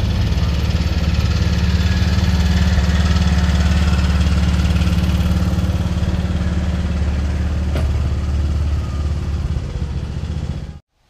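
Small engine of a ride-on miniature train's locomotive running steadily as the train passes close by, easing a little near the end and cutting off suddenly.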